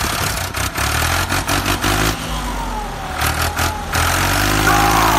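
Truck engine running and revving unevenly, with scattered sharp clicks and knocks in the first half.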